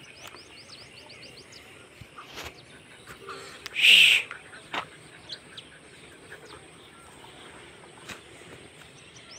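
Birds chirping: a quick run of short, high, falling chirps near the start. One loud, short call about four seconds in.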